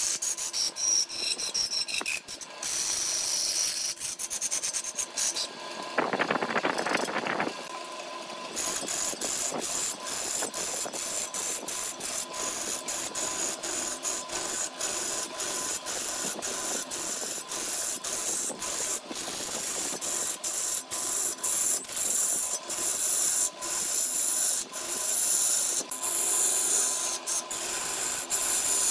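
A gouge cutting into a wood blank spinning on a lathe: a continuous scraping, hissing rasp of wood being peeled away as shavings, broken by frequent brief dips. Around six seconds in the cut sounds lower and coarser for a moment, and from about eight seconds on a faint steady tone runs underneath.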